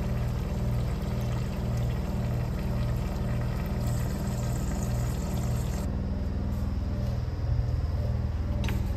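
Kilgore urinal flushing: water from the flush valve runs down into the bowl and stops about six seconds in, over a steady low pulsing hum. A short click near the end.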